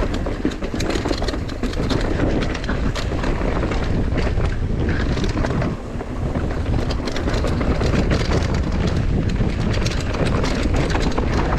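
Wind buffeting the microphone while a mountain bike is ridden over rough ground, with a steady run of clatter and knocks from the bike and tyres.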